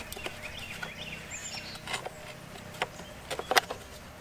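Plastic cover being worked off the blade hub on the underside of a push lawnmower: a few sharp clicks and knocks, the loudest about three and a half seconds in. Birds chirp in the background early on.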